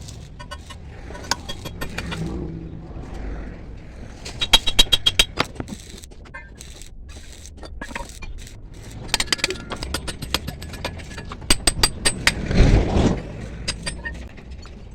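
Metal clinking and clattering in quick runs of sharp clicks, three times, with a heavier scraping rush near the end over a low steady background rumble.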